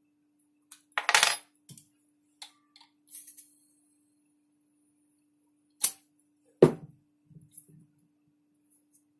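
A KJ Works M4 gas-blowback airsoft magazine being charged from a can of gas and handled: short hisses of gas in the first few seconds, then two sharp clicks about six and seven seconds in.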